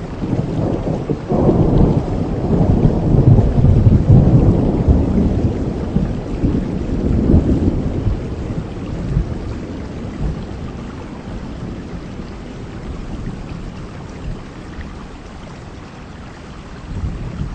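Heavy rain falling steadily, with a long rumble of thunder that swells about a second in and dies away over several seconds.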